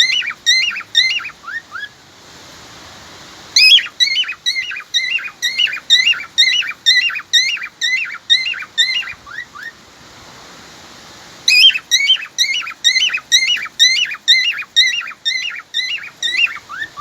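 Cockatiel whistling a car-alarm call: runs of identical short, loud chirps, about two or three a second, in three bouts with short pauses between them.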